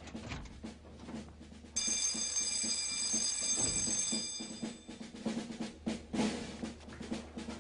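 Background music with a drum rhythm. About two seconds in, a bright high ringing comes in suddenly and holds for about three seconds, then fades.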